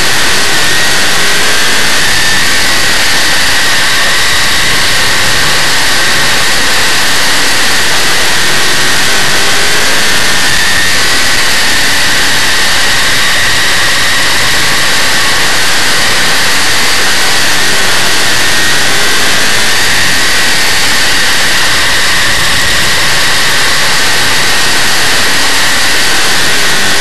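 Big-block Chevrolet V8 of a dirt modified race car at racing speed, heard from a camera mounted on the car: a loud, dense engine noise whose pitch swells and eases every few seconds as the driver gets on and off the throttle through the turns.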